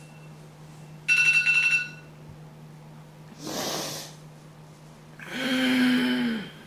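An alarm beeps rapidly in a short burst about a second in. Then a person gives a breathy exhale, followed by a drawn-out groan held at one pitch that drops off at the end, as if just woken.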